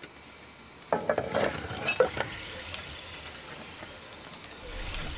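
Lumps of kiln-burnt limestone dropped into water, a short clatter and splash with sharp clicks about a second in, then a faint steady hiss. This is the slaking test of whether the stone has burnt through to quicklime.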